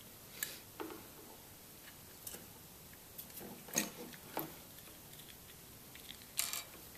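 A few light, separate clicks and knocks of handling, the clearest a little under four seconds in, as a small two-stroke engine crankcase and a screwdriver are moved about on a bare aluminium plate, with a short scrape near the end.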